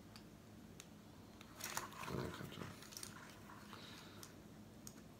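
Small hobby blade slicing through a rubber RC truck tire as it is bent open: faint scraping and small clicks, with a louder crunching stretch about two seconds in.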